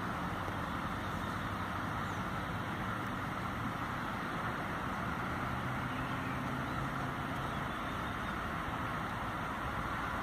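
Steady background noise with a low, even hum, like distant road traffic.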